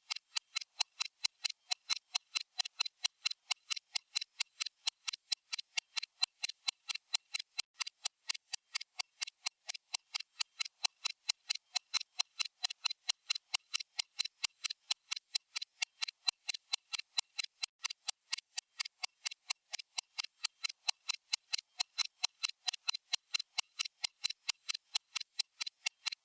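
Stopwatch ticking sound effect: short, crisp, evenly spaced ticks, about four a second, in an unbroken rhythm.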